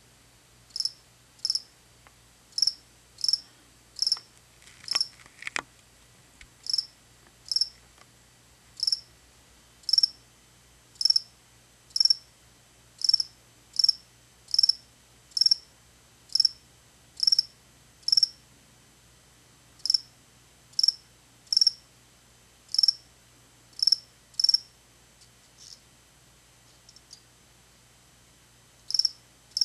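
Black field cricket chirping: short, high-pitched chirps repeated about once a second, with a couple of brief pauses. This is the stridulating calling song of a male.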